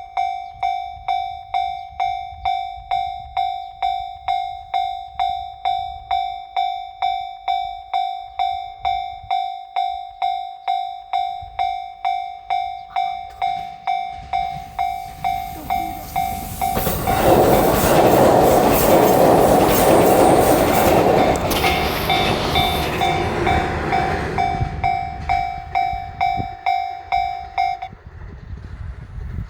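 Japanese railway level-crossing warning bell ringing about twice a second, a single pitched ding with overtones. About halfway through, a train passes over the crossing with a loud rush of wheel and running noise that drowns the bell for a few seconds, then fades. The bell stops near the end.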